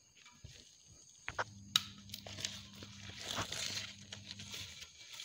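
Steamed banana-leaf wrapping being cut with a knife and peeled off a moode kottige: a couple of sharp clicks, then crinkling and rustling of the wilted leaves. A low steady hum runs underneath from about a second in until near the end.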